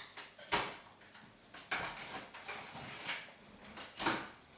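Large cardboard box being handled and cut open: about five short, irregular scrapes and rustles of cardboard and packing tape.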